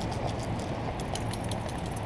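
Wind buffeting the microphone of a camera worn by a trotting dog, with scattered light clicks and rattles from the dog's movement.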